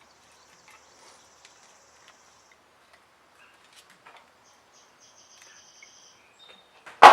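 Faint metal clicks and thin squeaks of pliers gripping and turning a threaded carburetor mounting stud. Near the end comes a single loud metallic clank.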